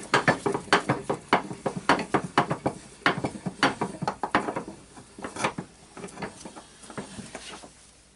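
Hammer striking a metal punch in quick, repeated metallic taps, about four a second, to drive the orbital sander's armature shaft out of its bearing; the taps thin out and fade near the end.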